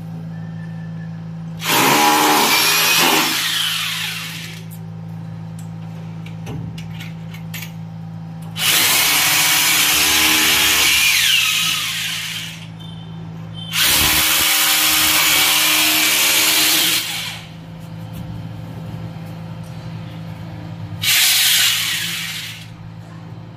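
Electric drill run in four bursts of about two to four seconds each, with a steady low hum between them.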